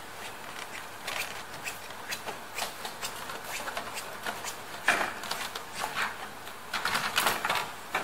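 Light clicks, taps and rustles of a cardboard cake box being handled and folded shut, louder about five seconds in and again around seven seconds in.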